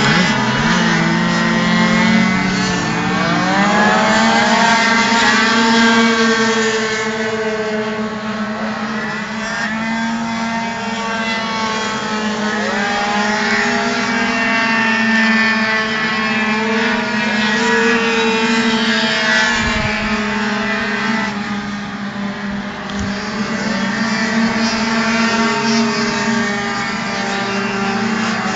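Several tuned two-stroke racing scooter engines running hard around a track, their pitch gliding up and down as they accelerate and pass, overlapping one another over a steady low drone.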